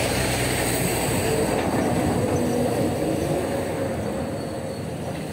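A motor vehicle passing close by on the road: a steady rumble with a faint whining tone, loudest in the first few seconds and easing off near the end.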